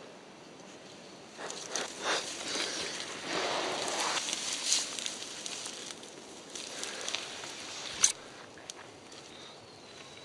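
Ferns and forest undergrowth rustling and crunching as someone moves through them, busiest in the first half, with one sharp click about eight seconds in.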